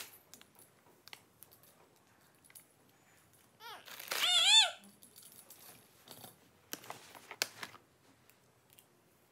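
Scattered soft clicks and rustles of hair being tied up and handled. About four seconds in, a toddler makes a short high-pitched vocal sound that rises and falls in pitch.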